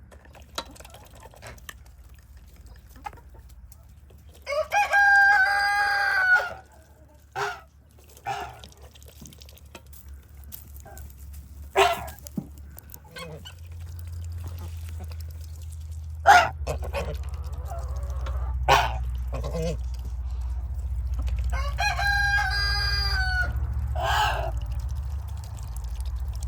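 A rooster crowing twice, once about four seconds in and again near the end, each crow lasting about two seconds, with short clucks from the flock in between. A low steady rumble comes up from about halfway.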